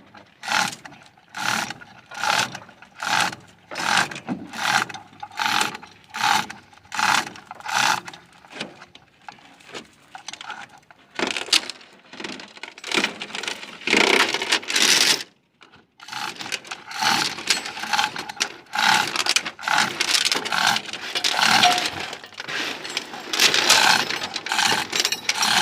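Metal-on-metal hammer strikes on the excavator's swing-motor assembly, ringing, evenly paced at a little more than one a second for about nine seconds. From about eleven seconds in they give way to a quicker, denser clatter of metal knocks and scrapes.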